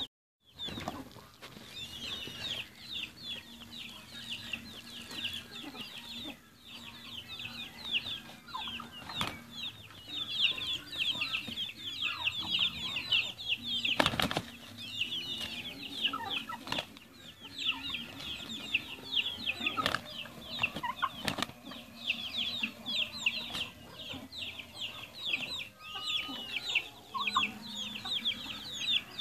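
A turkey and a rooster fighting: wings flapping and bodies striking in a few sharp bursts, over constant quick, high chirping of small birds.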